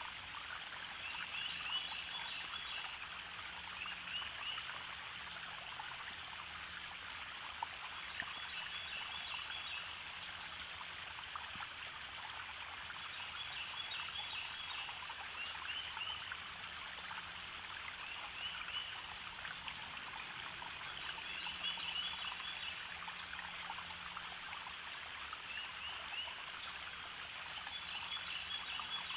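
Steady sound of running water like a stream, with short high twittering figures coming back every few seconds and faint low held notes underneath.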